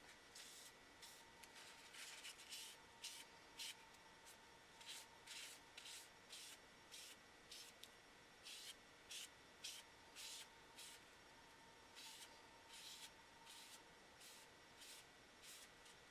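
Paper towel rubbing wood stain into wooden knife handle scales: faint, short rubbing strokes, irregular, about one or two a second.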